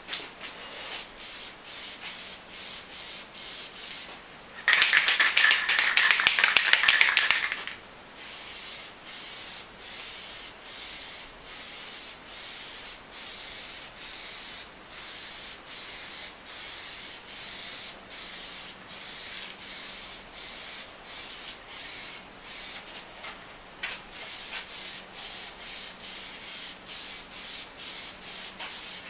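Aerosol can of Plasti Dip being shaken, its mixing ball rattling in short regular strokes about two a second. About five seconds in comes a much louder, denser burst lasting about three seconds.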